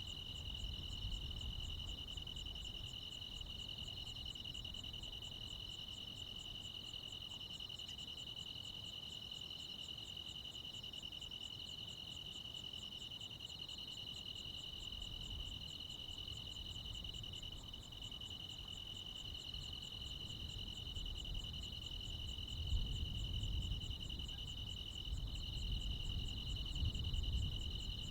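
Chorus of crickets and other insects: a steady high trill with faster, evenly pulsing chirps above it. Underneath runs a low rumble that swells after about twenty seconds.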